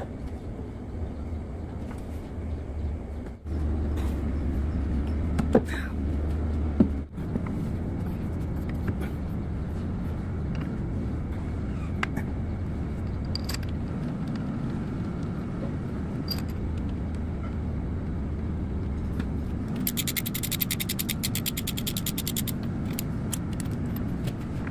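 Steady low rumble of workshop machinery, with light metal clicks and knocks as Caterpillar 3406C connecting-rod caps and bolts are handled. About twenty seconds in comes a quick run of ratchet-wrench clicks as a rod cap bolt is run down.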